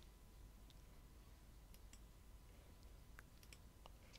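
Near silence with a few faint computer mouse clicks, several of them close together near the end.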